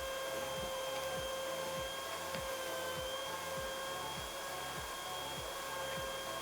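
Washing vacuum cleaner running steadily, its motor giving a constant high whine over the rush of suction.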